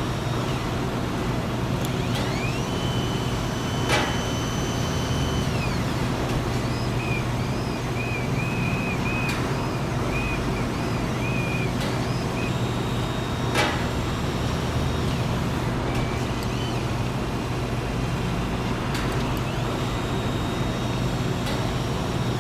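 Factory machinery running steadily with a low hum. A motor whine rises, holds and falls twice, and a few sharp metallic clicks come through.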